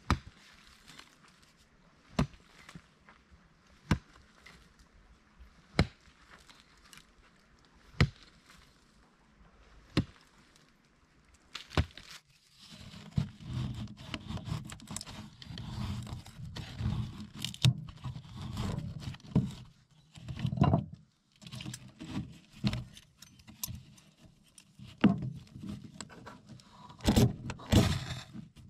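A pick striking the earth about every two seconds, seven blows. Then a knife scraping shavings off a stick inside a steel stove's firebox, ending with a few hard rasps of a ferro rod throwing sparks.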